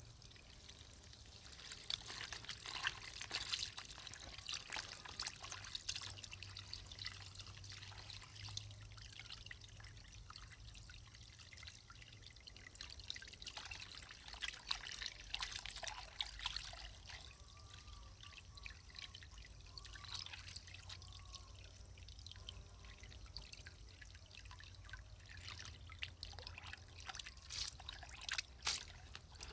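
Thin stream of water from a garden hose pouring into a bowl, with irregular splashing and sloshing as hands rub and rinse raw chicken hearts in the water.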